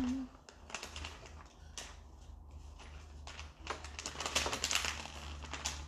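Light, irregular clicks and taps of small wooden kit pieces and rubber rings being handled on a tabletop as rubber rings are stretched over the tabs of a wooden box.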